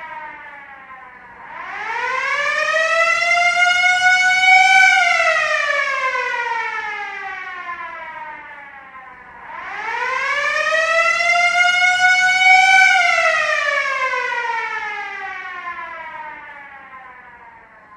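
Air-raid siren wailing in two slow cycles. Each time its pitch rises for about three seconds, then falls for about four, and the second fall dies away near the end.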